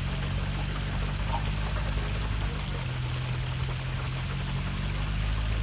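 Water rushing and splashing steadily, over a steady low drone.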